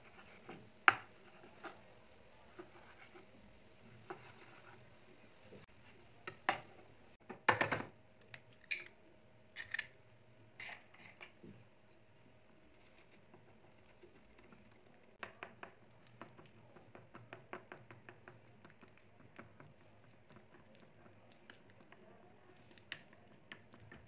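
Kitchen prep sounds: a kitchen knife tapping and scraping on a wooden cutting board, with a cluster of loud knocks about seven and a half seconds in. From about fifteen seconds in, quick light clicking of a wooden utensil stirring egg and flour into batter in a ceramic bowl.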